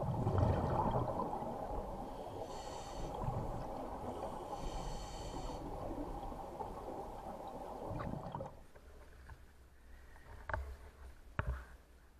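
A scuba diver breathing underwater through a regulator: exhaled bubbles rumbling and gurgling, with two short hissing inhalations through the regulator a few seconds in. After about eight seconds it drops much quieter, with two sharp knocks near the end.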